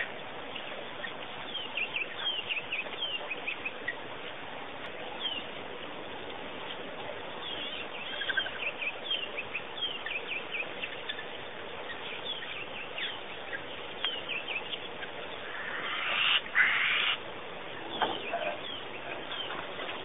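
Wild birds calling: many short, high chirps come quickly and keep on throughout. A little past three quarters of the way in comes a louder rough, rasping noise lasting about a second and a half, broken once, and soon after it a single lower call that falls in pitch.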